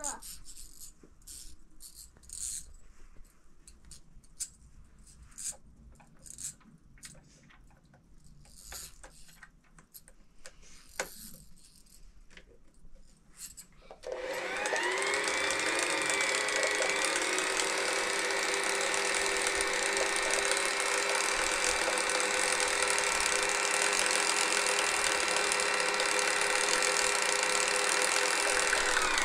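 Light clicks and taps as the sewing machine and its thread are handled. About halfway through, the electric sewing machine's motor starts, speeds up, and runs steadily at speed.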